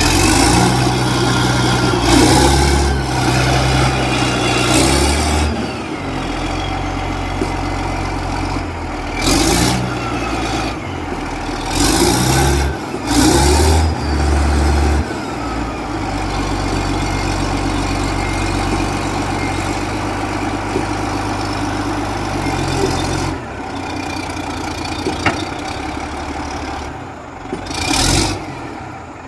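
Caterpillar D8R bulldozer's diesel engine running with a steady low hum, surging louder for a second or so several times.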